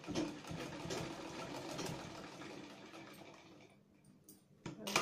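Domestic straight-stitch sewing machine running, stitching through layered fabric. It runs down and stops about three-quarters of the way through, followed by one sharp click near the end.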